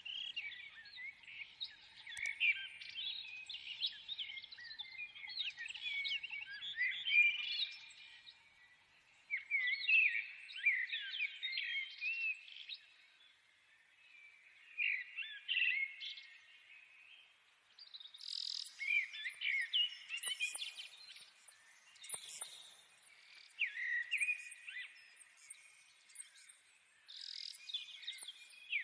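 Small birds chirping and twittering, many quick chirps in busy bouts of a few seconds with short lulls between them.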